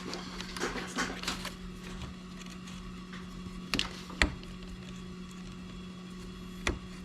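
A few sharp clicks and handling noises of hand work on vehicle wiring: a cluster in the first second and a half, two louder clicks around four seconds in, and one near the end, over a steady low hum.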